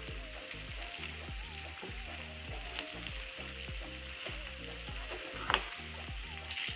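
Chicken pieces sizzling as they are stir-fried with onion and capsicum in a non-stick pan, with the spatula scraping through them and one sharp knock against the pan about five and a half seconds in.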